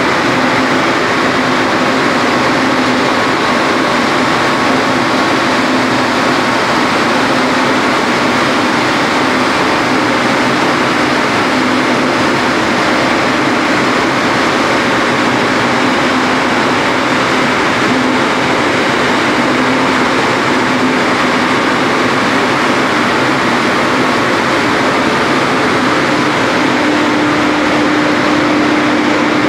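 Small hydropower plant's water turbine and generator running during commissioning: a loud, steady rushing noise with a constant machine hum, whose pitch shifts a little higher near the end.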